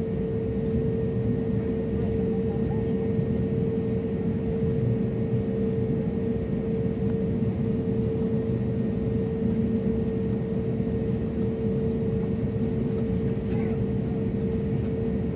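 Airliner cabin noise as the plane moves on the ground: steady jet engine rumble with a constant mid-pitched tone over it.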